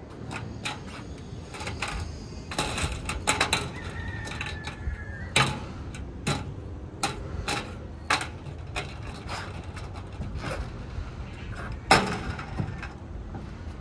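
Irregular knocks and clicks of hands-on roofing work, handling and fixing metal roofing, with two louder sharp strikes about five seconds in and near the end.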